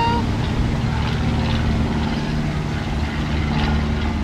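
A low, steady engine drone with an even hum and no strokes or breaks.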